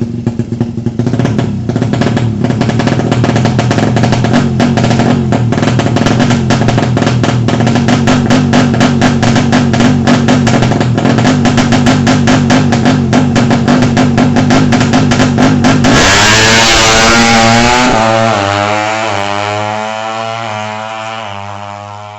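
Music with a fast steady drum beat. About sixteen seconds in it gives way to a loud burst of noise and a wavering sound that fades out.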